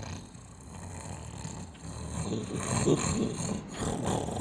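A sleeping man snoring: a rough, rasping snore that grows louder about halfway through.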